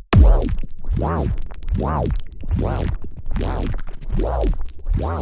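Electronic music breakdown: after an abrupt cut, a synthesizer tone swoops up and back down in pitch over and over, about once every 0.8 seconds, over a deep bass.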